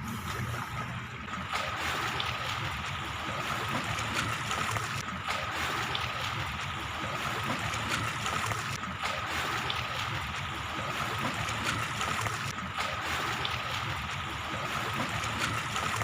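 Sea water washing and lapping along the shore, a steady churning wash, with a thin steady tone running under it.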